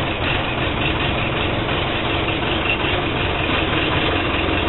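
Case 580C backhoe's four-cylinder diesel engine idling steadily just after a cold start.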